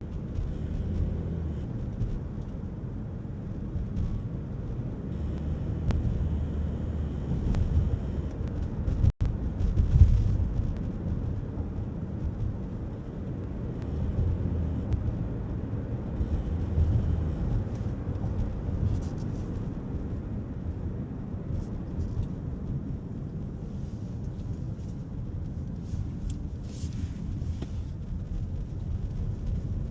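Toyota Corolla Cross hybrid making a low, uneven rumble, a noise the owner takes to be abnormal. It cuts out for an instant about nine seconds in and then swells to its loudest.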